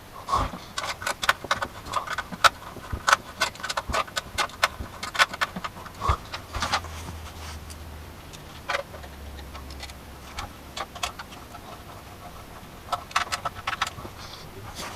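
Irregular clicks, taps and knocks of computer hardware being handled and fitted, as a power supply is installed in a PC case, with a brief low hum in the middle.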